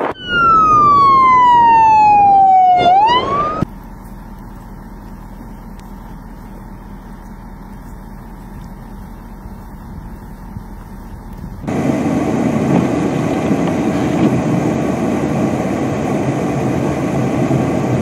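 Emergency vehicle siren wailing: its pitch slides slowly down, then sweeps sharply back up and cuts off after about three and a half seconds. Steady noise follows, louder from about twelve seconds in.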